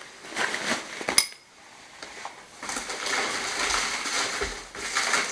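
Parcel packaging being handled: a few light knocks and a sharp click about a second in, then a longer stretch of crinkling and rustling as the package is picked up.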